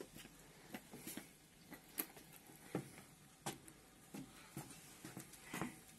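Faint, scattered taps of footsteps on wooden deck boards, about one a second and irregular.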